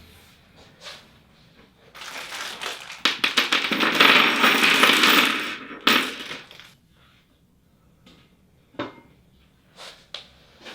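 Small metal bolts and plastic fittings clinking and rattling as they are handled for table assembly: a dense run of quick clicks lasting a few seconds, then a few single knocks near the end.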